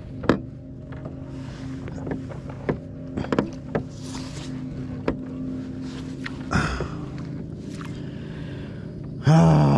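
Scattered knocks and clunks on a plastic fishing kayak over a steady low hum, with the pedal drive just broken. Near the end a man's voice breaks out loudly in an exclamation.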